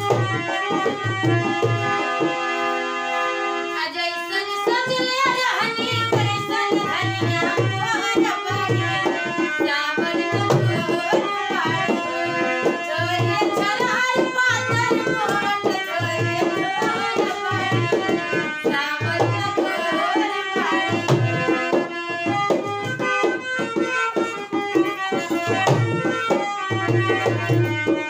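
Bhojpuri folk song played live on harmonium and dholak. The harmonium plays alone for about four seconds, then women's voices come in singing over it, with a steady dholak beat throughout.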